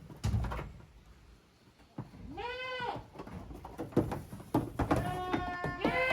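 Young goat kids bleating: one call rising and falling in pitch about two and a half seconds in, then a longer, steadier bleat near the end, with a few short knocks in between.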